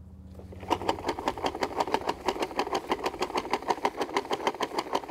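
Toy push lawn mower clicking rapidly and evenly as it is pushed across grass, about seven clicks a second, starting just under a second in. A low steady hum sits under the first second.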